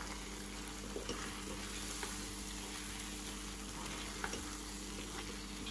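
Thick paneer masala gravy sizzling gently in a kadai on a low flame while a wooden spatula stirs it, with a few soft scrapes of the spatula against the pan.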